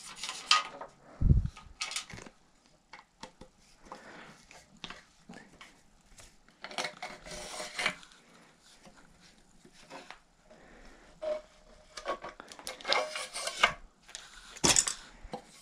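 Bicycle parts, a carbon handlebar among them, being handled by hand: scattered clicks, light knocks and rustling, with a dull thump about a second in and a sharp knock near the end.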